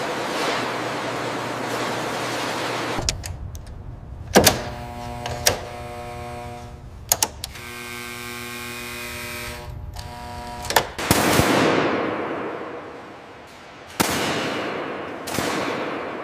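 Rushing noise, then a few sharp clicks and a steady humming tone with several overtones, then two swells of rushing noise that fade away.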